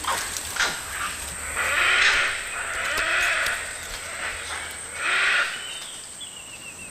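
Long-tailed macaques calling: three drawn-out, noisy calls.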